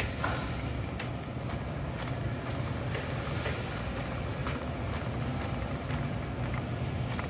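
Steady low rumble of a large store's background noise, with faint scattered ticks and knocks.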